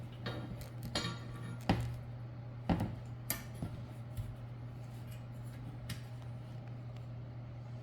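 Reel lawn mower parts being handled during assembly: a handful of short metallic clicks and knocks in the first few seconds, over a steady low hum.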